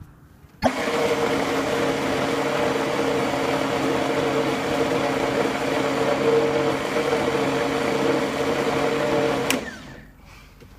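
Countertop blender switched on about a second in, its motor running steadily as it purees soaked Irish moss and water into a thick gel, then switched off with a click near the end.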